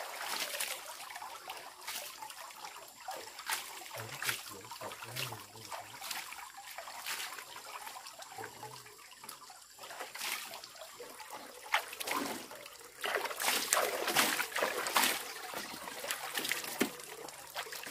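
Water trickling and splashing in irregular bursts, with many short splashes that come thickest near the end.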